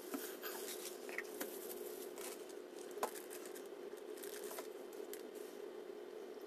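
A utensil stirring thick, clear lip gloss base in a plastic cup: irregular small clicks and scrapes, the sharpest about three seconds in. A steady low hum runs underneath.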